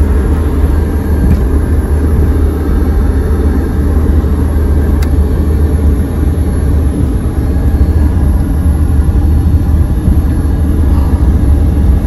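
Steady low rumble of a car's engine and tyres, heard from inside the moving car's cabin.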